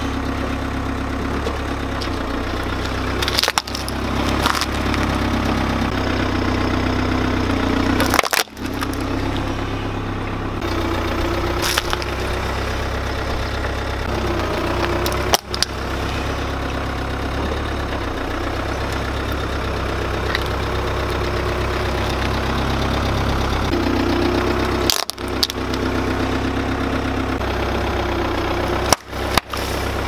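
A car engine running low and steady as the car creeps forward, its tyre crushing small plastic objects, with several sharp cracks and crunches as they break.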